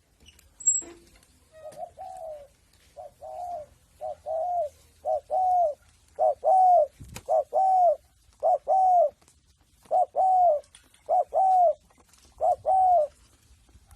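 Spotted dove cooing over and over, each phrase a short note followed by a longer arched coo, the phrases growing louder as it goes. A brief knock sounds about halfway through.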